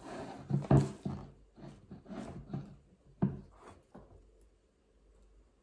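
Knocks and handling sounds of things on a table, mixed with a few short low grunts or hums from a man's voice. All of this stops after about four seconds.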